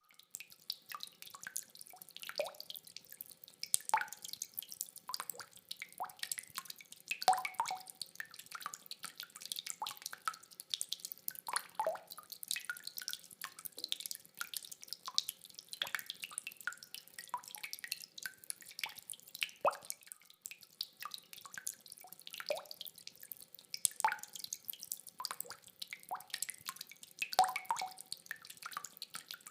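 Rainwater dripping: many irregular drops plinking, several a second, some with a short ringing pitch. There is no thunder rumble.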